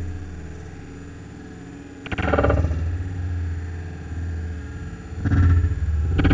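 CNC vertical milling machine cutting an aluminium part under flood coolant: a steady low spindle hum, with louder, rough bursts of cutting noise about two seconds in and twice more near the end.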